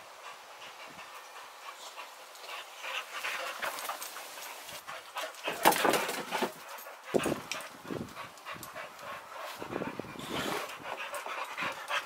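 Boxer dogs panting hard from the exertion of a long fetch run, in quick irregular breaths, loudest about halfway through as they pass close by.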